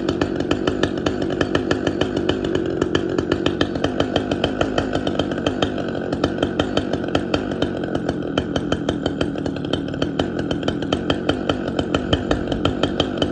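Two-stroke chainsaw engine idling with an uneven, stumbling beat as its low-speed mixture screw is turned out toward rich, so that it starts to die.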